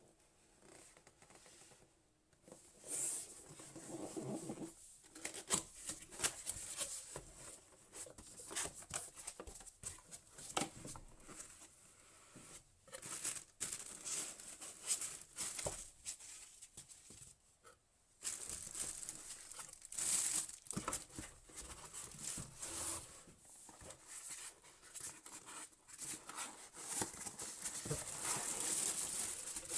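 Packaging being handled: irregular crinkling and tearing rustles with scattered small clicks and knocks.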